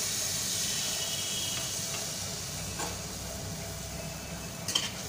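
Malpua batter frying in hot oil and ghee: a steady sizzle that eases a little as it goes on, with a few light clicks near the end.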